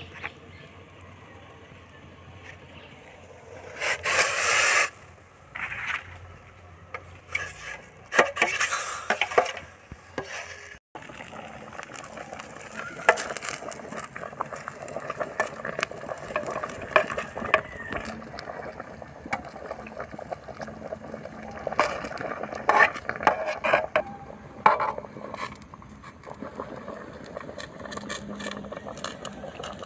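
A machete blade scraping and clinking against a steel cooking pot as pork is stirred, with many quick, uneven scrapes and knocks through the second half. Earlier come a couple of short loud noises.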